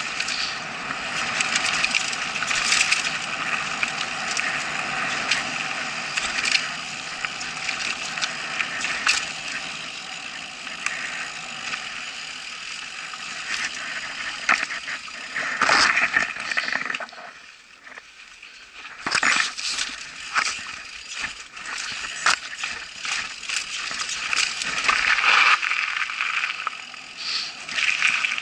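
Mountain bike rattling and clattering over a rough dirt forest trail, with tyres on dirt and stones and sharp knocks from bumps. It goes quieter for a couple of seconds a little past the middle.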